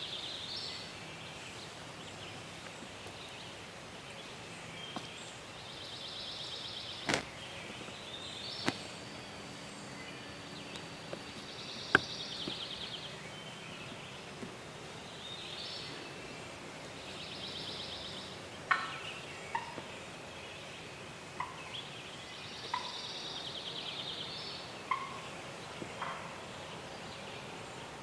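A distant wild turkey gobbler gobbling over and over, each rattling gobble about a second long and coming roughly every six seconds. A few sharp snaps and clicks fall in between.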